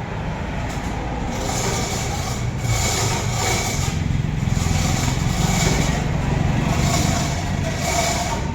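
Engine running steadily with a low rumble, and a hiss that swells and fades about once a second.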